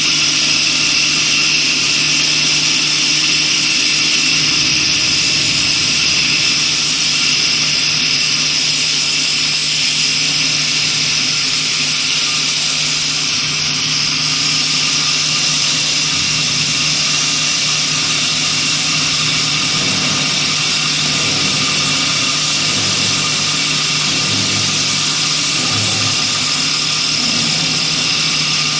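CNC wood copy lathe running steadily, a constant motor hum with several high steady whines.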